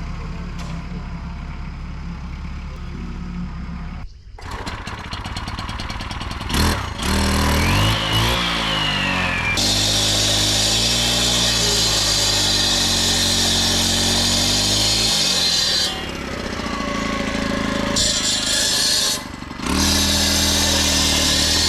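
A tractor engine idles steadily, then after a cut a gas-powered concrete cut-off saw revs up sharply and grinds into the concrete foundation with a loud, harsh, gritty noise. The cutting eases for a moment and then starts again twice, with abrupt breaks between shots.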